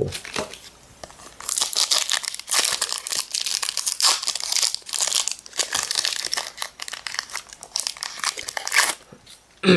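Foil wrapper of a Pokémon EX Emerald booster pack crinkling and tearing as it is pulled open by hand. The dense crackling starts about a second and a half in and stops about a second before the end.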